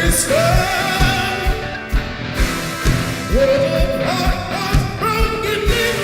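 Rock band music with long held, sliding sung notes over a steady kick drum beating about twice a second.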